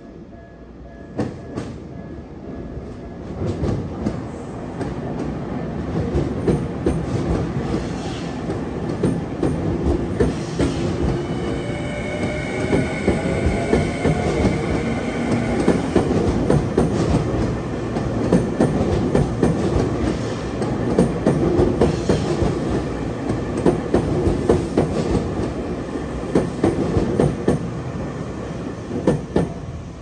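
An electric commuter train running past over a level crossing and points, its wheels clacking over the rail joints in a dense, irregular rhythm. A high wheel squeal rings out for a few seconds about twelve seconds in. The sound builds over the first few seconds and drops away near the end as the train clears.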